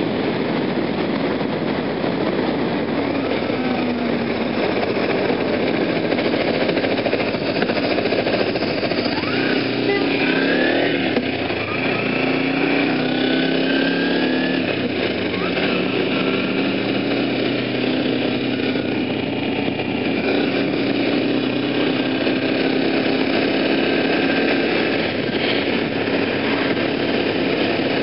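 Kawasaki sport motorcycle riding at road speed, its engine running under a steady rush of wind noise. About ten seconds in, the engine note rises and falls a few times.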